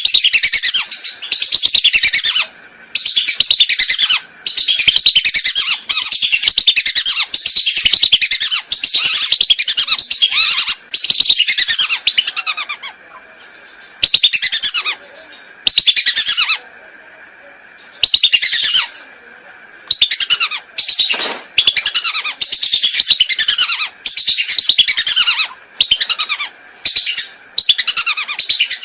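Whistling ducks (belibis) calling: rapid runs of high, clear whistled notes, each note falling in pitch, in bursts of a second or few, with short pauses between them. This is a recorded call played as a hunting lure to draw the ducks in.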